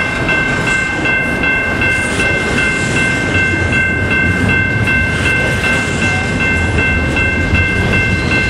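Loaded double-stack container well cars of a freight train rolling past close by, a steady rumble and rattle of wheels on rail, with a steady high ringing tone held over it.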